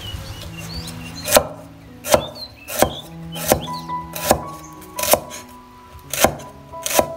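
Cleaver slicing lemongrass stalks on a thick wooden chopping board: about eight sharp chops, roughly one every three-quarters of a second, starting about a second in, over background music.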